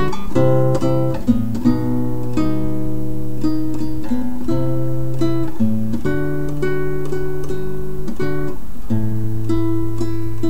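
Acoustic guitar music: plucked notes and chords that change every half second to a second.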